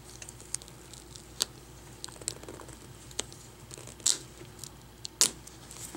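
Adhesive tape being peeled up off a laptop LCD's video cable connector by hand, a run of small crackles and ticks. There are a couple of sharper clicks about four and five seconds in.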